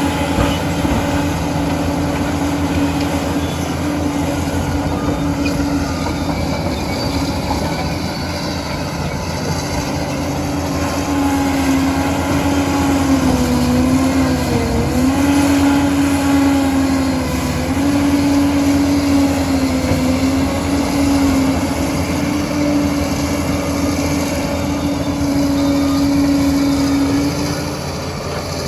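Liebherr PR 746 crawler dozer running and working, a loud steady machine drone whose pitch sags and recovers a few times, around halfway in and again a little later.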